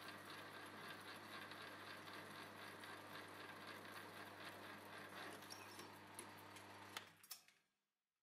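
Drill press running, a twist drill cutting through a steel plate held in a vise: a steady motor hum with fine crackling from the cut. It stops suddenly about seven seconds in, with a couple of clicks.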